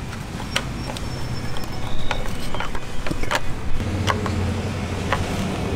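Irregular sharp plastic clicks and knocks as a fish-finder transducer and its mounting bracket are handled and fitted against the boat's fiberglass transom, with a low steady hum underneath.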